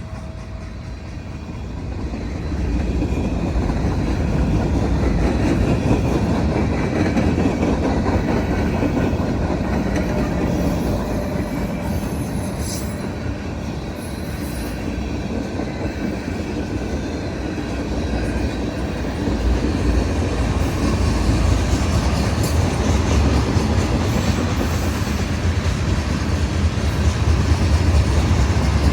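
CSX freight train rolling past on the main line: a steady rumble of wheels on rail that grows louder about two and a half seconds in.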